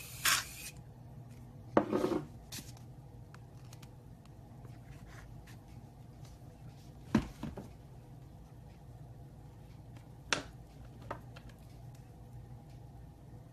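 Scattered light taps and clicks of objects being handled and set down, with a slightly longer rattle about two seconds in, over a steady low hum.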